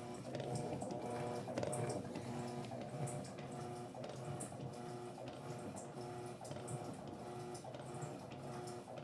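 Electrolux LT12F top-loading washing machine agitating a floor-cloth wash: a motor hum with regular ticking and water sloshing, falling away right at the end.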